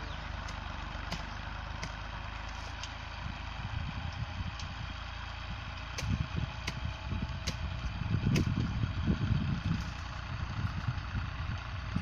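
Fiat 480 tractor's diesel engine running steadily at a distance as it pulls a plough through the field. From about six seconds in, irregular low rumbles grow louder over it, with scattered sharp ticks.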